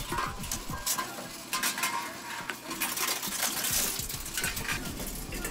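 Aluminium drink cans being fed into a reverse vending machine, a run of metallic clinks and knocks as each can goes in and rattles on the machine's rollers, with a short hiss from the machine about three seconds in.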